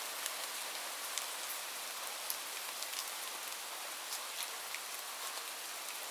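Light rain falling steadily as a soft even hiss, with scattered individual drops ticking on a surface.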